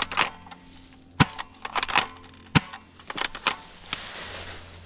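Footsteps crunching through dry leaves and twigs, with sharp snapping cracks about a second in and again at two and a half seconds, over a steady low hum.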